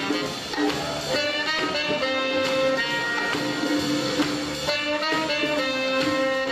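A jazz quintet playing live: a horn holds long notes over a drum kit, with ride cymbals and drums keeping time.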